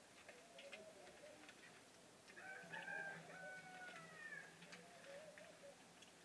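A rooster crowing once, faint, about two seconds in, the long call falling away at its end. Soft scattered clicks run around it.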